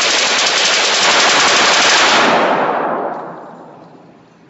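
PPS-43 submachine gun, chambered in 7.62×25mm Tokarev, firing one long full-auto burst of rapid shots. The burst stops about two seconds in, and its echo dies away over the next two seconds.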